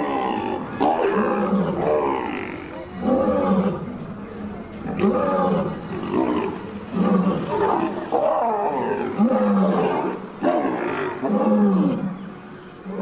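A big cat roaring and growling over and over, about eight loud calls, one every second or so.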